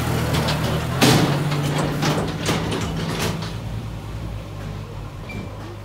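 John Deere 5105 tractor's diesel engine running steadily, with a series of sharp metallic knocks and rattles over the first three seconds, the loudest about a second in. The engine grows somewhat fainter toward the end.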